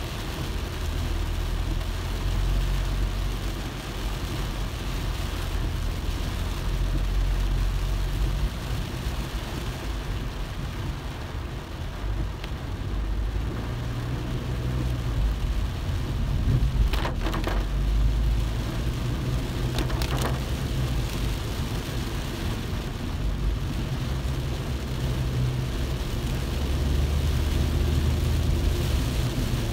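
Car driving in the rain: a steady low rumble of the car with a hiss of rain and wet road. Two short sharp knocks come a few seconds apart, past the middle.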